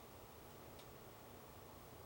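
Near silence: a faint steady hiss with a single faint click a little under a second in.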